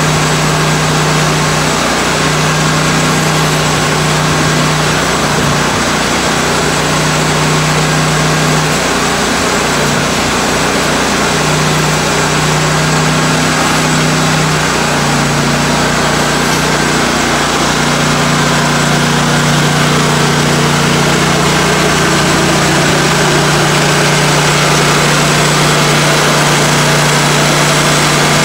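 Timberking 1600 portable band sawmill running steadily, its engine under load and the band blade cutting through an oak log as the sawhead feeds along it. A loud, even drone with a low hum.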